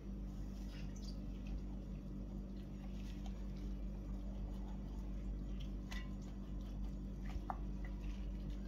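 Raw chicken being cut open and handled on a stainless steel plate: faint wet squishing and small clicks of the blade and plate, over a steady low hum.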